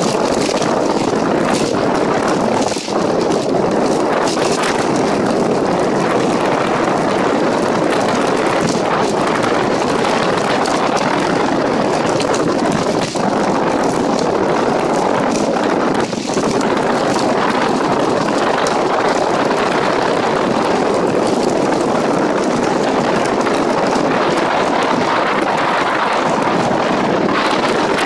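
Sandstorm wind buffeting the microphone: a loud, steady rush of noise that dips briefly a few times.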